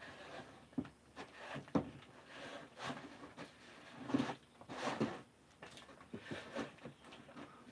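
Irregular light knocks, clicks and scuffing from hands working with painting tools and materials, with bursts of brushing or rubbing noise.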